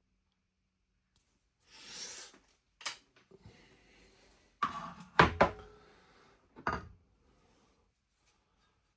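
Metal lathe accessory parts being handled and set down: a soft scrape, a click, then a few sharp clunks and knocks about five seconds in, with one more shortly after.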